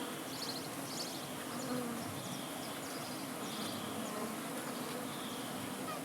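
Honey bees buzzing in a steady drone, with a few faint high chirps over it.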